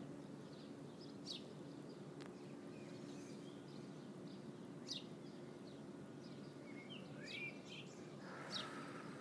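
Faint outdoor ambience: a steady low hum with small birds chirping now and then, a few short high chirps and a cluster of quick calls near the end.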